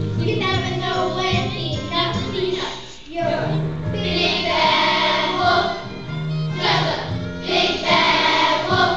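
A song with a group of children's voices singing together over musical backing, held notes rising and falling, with a short drop in level about three seconds in.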